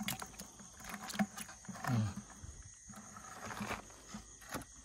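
Collapsible mesh net trap being handled and shaken out over a plastic bucket: scattered clicks and knocks of its wire frame and netting. There is a brief low voice sound about two seconds in, and a steady high insect chirr underneath.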